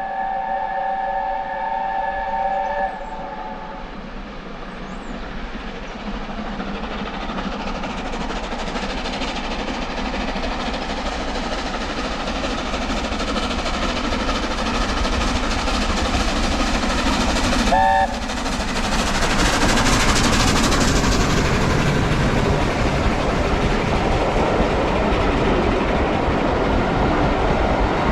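Steam locomotive's chime whistle blows for about three seconds. The train then draws closer, getting steadily louder, gives a brief second whistle about 18 seconds in, and passes close by.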